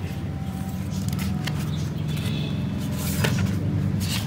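Light paper and plastic handling noises: a pen on a ledger sheet and the plastic pouches of a budget binder, with a few short rustles or taps, over steady low background music.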